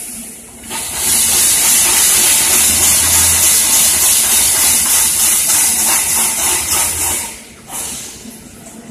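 Loud, steady hiss of escaping compressed air at a welded wire mesh machine, starting about a second in and cutting off sharply about six seconds later, with a faint low hum underneath.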